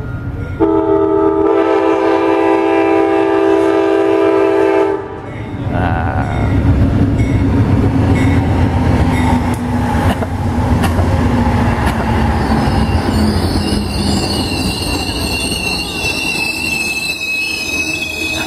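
Amtrak P42DC diesel locomotive's horn sounding one long blast of about four seconds, then the locomotives passing close by with heavy rumbling engine and wheel noise. From about twelve seconds in, a high steady squeal of the train's brakes rises over the rumble, really loud as the train brakes.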